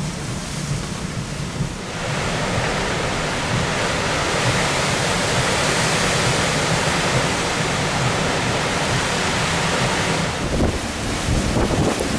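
Tropical-storm winds rushing hard. A gust strengthens about two seconds in and holds, and wind buffets the microphone with low rumbles near the end.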